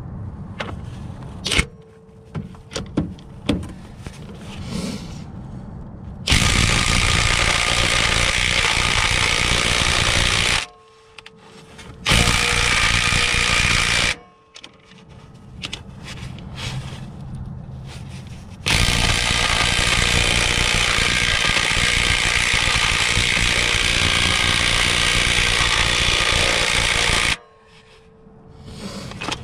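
Ridgid cordless impact wrench with a heavyweight welded 19 mm socket hammering on a Honda crank pulley bolt. A few light knocks come first, then three bursts of hammering about four, two and nine seconds long. It is 'basically just tickling the bolt': it lacks the heavy hammering action, and the crank bolt does not come out.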